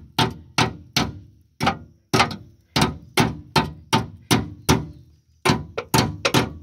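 Hammer striking steel car suspension parts, a steady run of ringing blows about two to three a second, with a brief pause about five seconds in.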